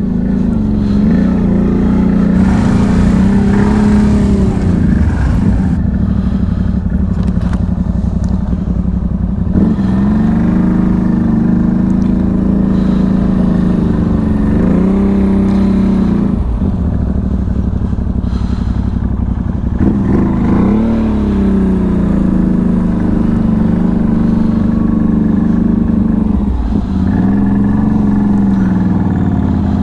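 Can-Am Outlander 1000 ATV's V-twin engine running steadily under load on snow tracks, its revs rising and falling several times.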